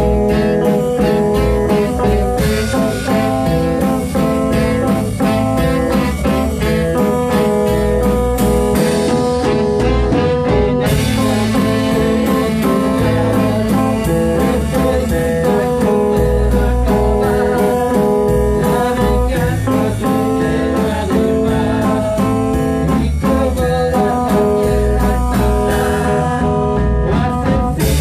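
A ska band playing live, with guitar and drums over a steady beat.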